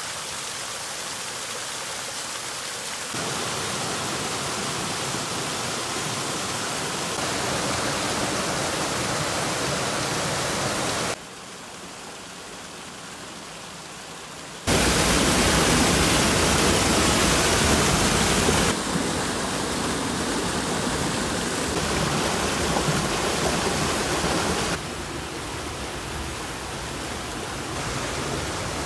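Small waterfalls and cascades pouring over rock ledges into pools: a steady rush of falling water. It comes in several short takes whose loudness jumps at each cut, with a quieter stretch just before the middle and the loudest just after.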